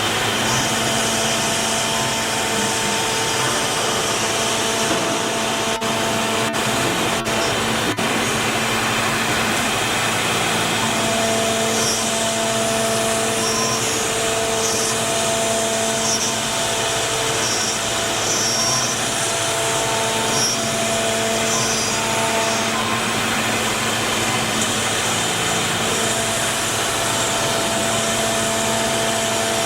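1530 CNC router running: a loud, steady machine whirr, with humming tones that drop out and return every few seconds as it works.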